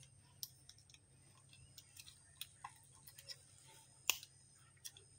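Faint, scattered small clicks and ticks from fingers handling the camera's LCD panel and the small plastic parts around it, with one sharper click about four seconds in.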